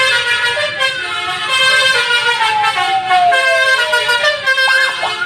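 Bus 'telolet' horn, a multi-tone musical horn, playing a tune of several notes at once. In the middle one long note falls steadily in pitch, and near the end come quick rising-and-falling swoops.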